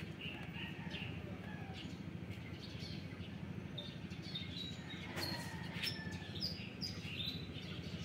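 Birds chirping in short, high calls, scattered throughout, some falling in pitch, over a steady low hum.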